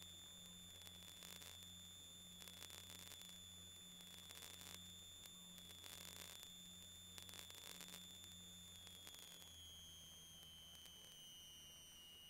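Near silence, with only a faint, steady high electronic whine and a low hum; the whine drops slightly in pitch near the end.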